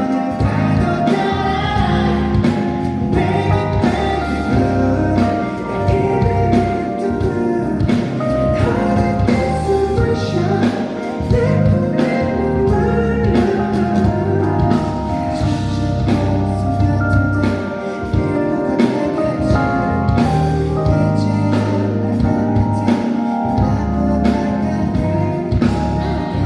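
Live concert music: a male singer singing a pop song over the band's accompaniment, loud and continuous.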